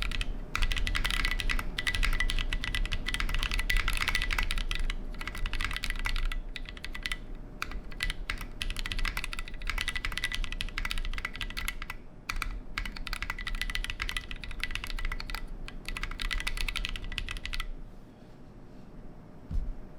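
Fast typing on a custom 60% mechanical keyboard with Drop Holy Panda tactile switches, GMK Skiidata keycaps and a KBDFans 5° aluminium case: a dense run of key clicks with a couple of short pauses, stopping shortly before the end.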